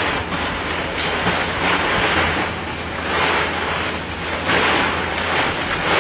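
Loose ice cubes clattering and crunching in a plastic paddling pool as a polar bear cub rolls and thrashes in them, coming in swelling rushes with many small clicks.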